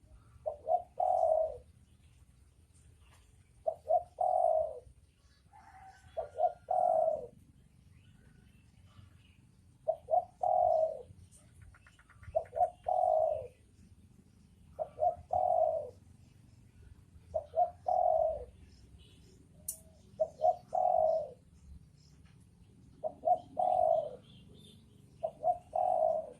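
Spotted dove cooing: the same phrase repeated about every two and a half seconds, a couple of short notes followed by a longer coo.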